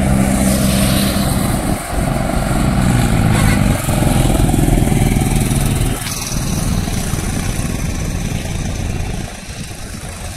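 Mahindra Arjun 555 tractor's diesel engine running hard under heavy load, hauling two loaded trailers up a grade while its wheels slip in place. The engine note is loud and steady, then drops off somewhat near the end.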